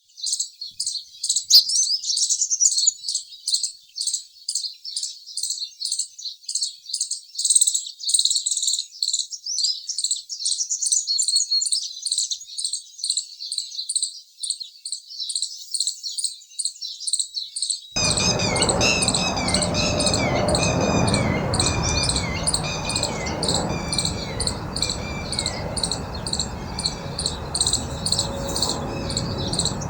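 Rapid, evenly repeated high-pitched chirping of birds and insects. About 18 s in, a steady outdoor background noise cuts in abruptly, and a run of lower, falling chirps joins the high ones.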